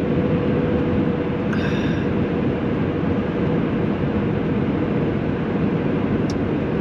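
Steady road and engine noise inside a moving car's cabin: a constant low rumble with a thin steady hum held at one pitch throughout.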